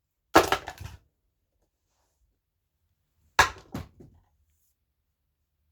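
Two brief clatters of hard parts knocking together, each a few quick hits, about half a second in and again near three and a half seconds in, as a subwoofer is handled during a teardown.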